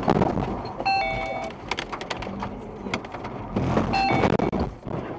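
A car sliding sideways on a wet road and running off onto the verge: a loud rumble of tyres and rattling knocks from the body. An electronic warning chime of several steady tones sounds twice, about a second in and again about four seconds in.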